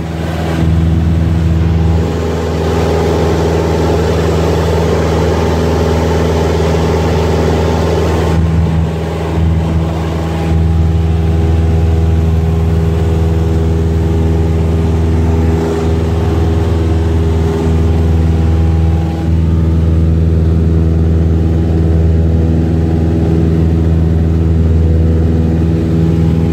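Small private airplane's engine and propeller droning steadily in cruise, heard inside the cabin. A rush of air noise swells for several seconds about two seconds in.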